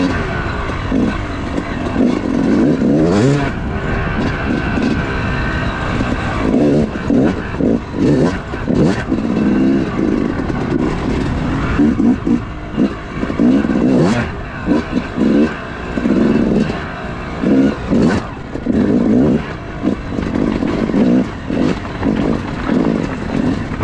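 Yamaha YZ250 single-cylinder two-stroke dirt bike engine being ridden hard, revving up and chopping off the throttle over and over as the pitch rises and falls.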